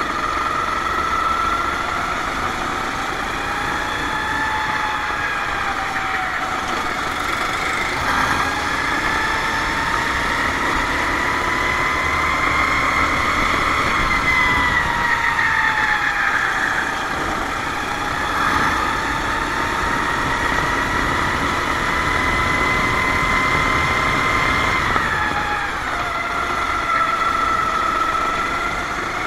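Kart engine running at racing speed. Its pitch climbs slowly for several seconds at a time and drops as it lifts off, most sharply about halfway through and again near the end.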